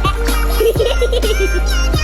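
Upbeat electronic background music with a steady beat and a wavering, synthesized-sounding singing voice.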